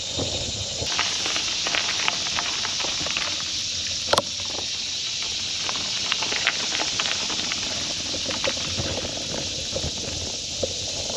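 Mountain bike rolling along a dirt trail: a steady hiss of tyres on dirt, with scattered clicks and rattles from the bike over bumps and a sharp knock about four seconds in.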